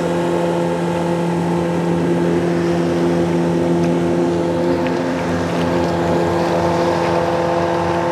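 Hidea 60 four-stroke water-jet outboard running at steady revs, driving a boat loaded with six people.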